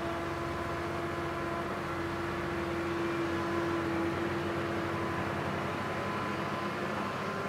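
Camera drone's motors and propellers whining steadily with one held tone, which shifts slightly in pitch near the end.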